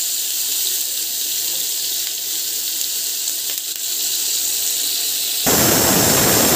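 Paneer cubes sizzling steadily as they fry in oil in a pan. About five and a half seconds in, this gives way suddenly to the much louder, steady hiss of a pressure cooker's whistle as steam vents through the weight valve on its lid.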